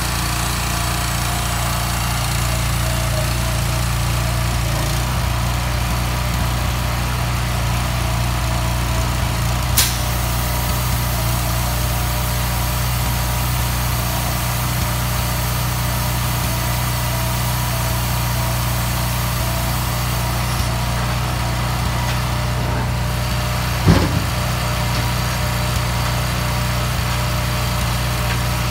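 An engine idling steadily with an even low hum, on the storage-container delivery truck. A sharp knock sounds about ten seconds in and another about twenty-four seconds in.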